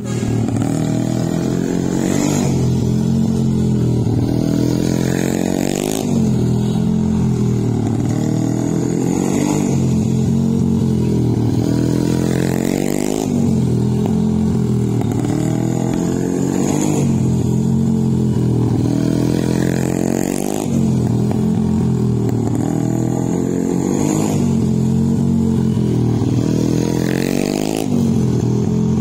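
Children's mini GP motorcycles lapping a tight paved practice circuit. The engine note dips and then climbs again in a cycle about every three and a half seconds as the bikes brake into the corner and accelerate out, with a short rush each time one passes close by.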